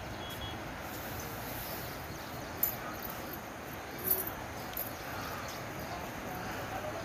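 Steady rushing noise of a river in flood flowing over and past a submerged bridge, with a few short sharp clicks about two and a half, four and five seconds in.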